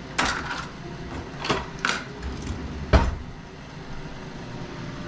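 Rummaging in a kitchen drawer for tongs: a few clatters and knocks of utensils, with a sharper knock about three seconds in.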